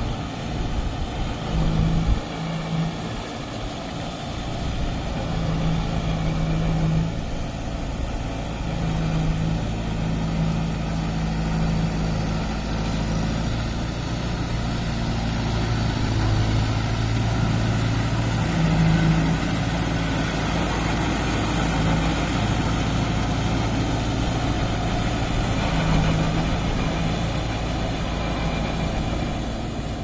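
Kubota MU5502 tractor's four-cylinder diesel engine running steadily as it works through wet paddy mud, its pitch shifting now and then.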